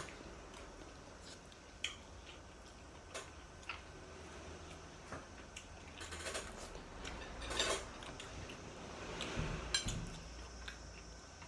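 Occasional light clinks of spoons against ceramic plates and bowls, with soft handling noises between them. The clinks are scattered single clicks, with a slightly longer scrape about seven and a half seconds in.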